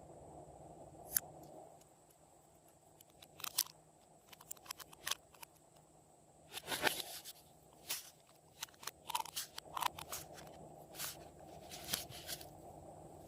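Slime being worked by hand, giving irregular sticky clicks, crackles and small pops: one click about a second in, then a steady run of them from about three and a half seconds on.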